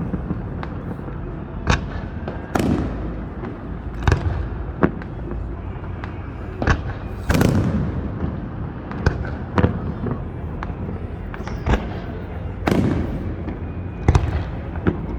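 Fireworks going off: a dozen or so sharp bangs at irregular intervals, a few of them longer booms that rumble away, over a steady low background rumble.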